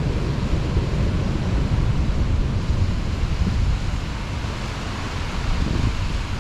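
Heavy rain with gusting wind, the wind buffeting the microphone in a deep, fluctuating rumble under the hiss of the rain; it eases a little after about four seconds.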